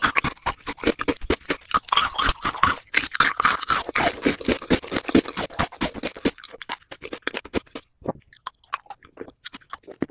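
Close-miked mouth chewing and biting gummy jelly candy: a dense run of clicks and smacks that thins out after about six seconds into sparse, separate ones.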